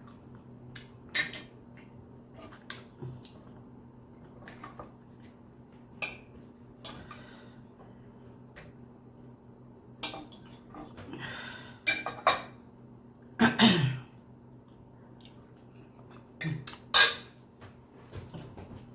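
Cutlery clinking and scraping against a plate while steak is eaten: scattered sharp clicks every second or two, with a louder clatter about two-thirds of the way in and another near the end.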